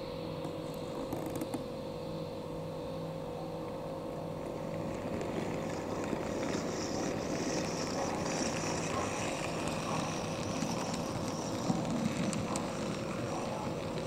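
OO-gauge model tank locomotive running along the track as it approaches: electric motor whining and wheels rumbling on the rails, growing louder through the middle, with a few faint clicks.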